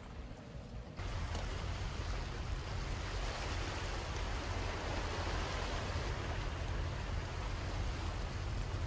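Steady outdoor rushing of wind and sea water, with a heavy low rumble; it jumps louder abruptly about a second in and then holds steady.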